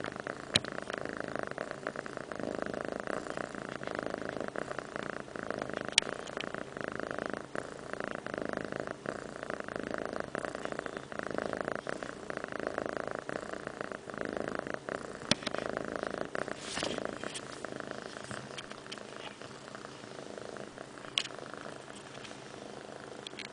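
Domestic cat purring steadily right at the microphone, with a few sharp clicks on top; the purr grows a little fainter near the end.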